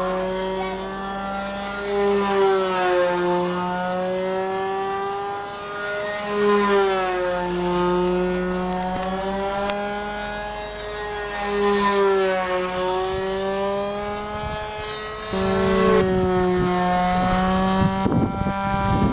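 Small model aircraft engine of a control-line scale F4B biplane running at steady full power as the model flies its circles, the pitch and loudness rising and falling once each lap, about every four to five seconds. About three-quarters of the way in the sound turns abruptly louder and steadier.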